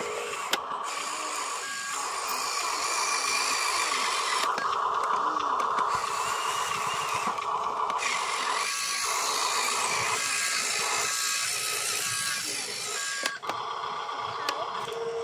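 Electric motor and gearbox of a radio-controlled construction model running, a steady high whine with a hiss that cuts out briefly a few times.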